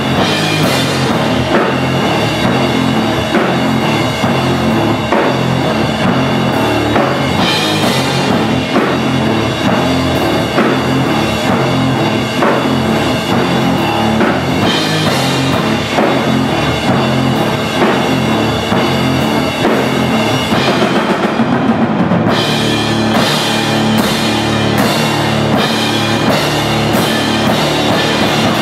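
Live rock played by a duo: an electric guitar through amplifiers and a drum kit played hard, with heavy cymbal crashes. About 22 seconds in the cymbals drop out for a moment, then come back with regular crashes.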